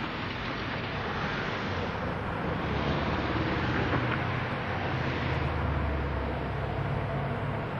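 SM31 diesel locomotive's engine running with a steady low drone as it hauls passenger coaches slowly forward. The drone grows stronger a couple of seconds in as the locomotive comes closer.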